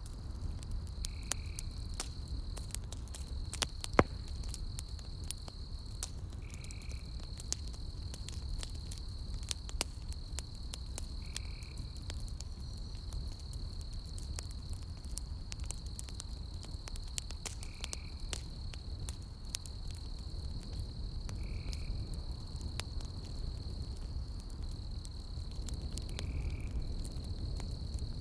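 Campfire logs crackling with scattered sharp pops, one loud pop about four seconds in, over a steady high insect trill and a short chirp-like call repeated about every five seconds.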